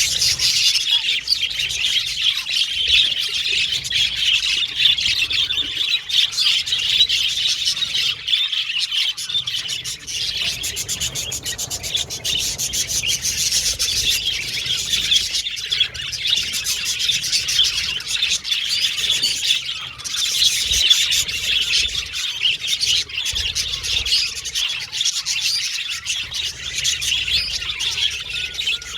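Several budgerigars chattering and chirping together: a dense, unbroken stream of quick high chirps and warbles.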